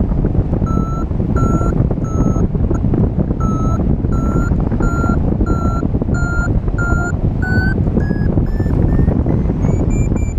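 A paragliding variometer beeping in lift at about one and a half beeps a second, the sign that the glider is climbing. Near the end the beeps rise in pitch and quicken as the climb strengthens. Heavy wind rushes on the microphone throughout.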